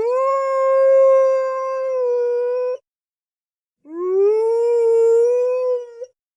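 Wolf howling twice, a sound-effect recording: each howl slides up in pitch at the start and then holds a steady note for about two seconds, with dead silence between them.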